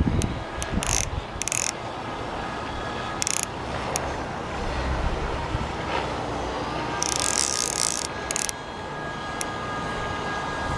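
Click-pawl ratchet of a Hardy Ultralite CC 1000 fly reel buzzing in several short bursts as line runs on the reel, with a longer burst about seven seconds in. A small river's riffle runs steadily underneath.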